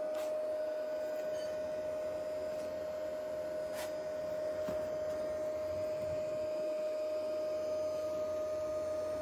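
Dahua NVR's cooling fans running uncleaned with a loud, constant whirring and a single steady whine over it: the noise of dusty fans before cleaning.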